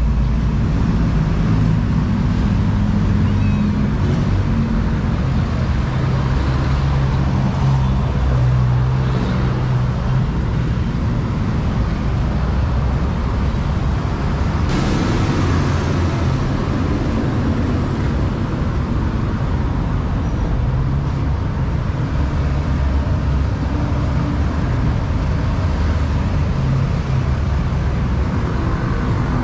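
Steady road traffic with a low engine drone throughout.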